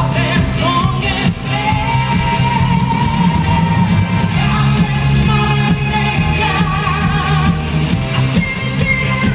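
A woman singing live into a microphone over a pop band with electric guitars, bass and drums and a steady beat. Early on she holds one long note; later her line wavers with vibrato.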